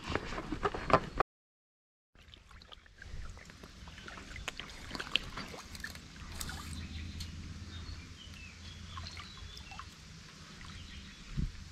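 Shallow river water lapping and trickling around a wading angler, with small clicks and knocks. The first second holds louder splashing and knocks, then a brief total silence, and a single short splash near the end.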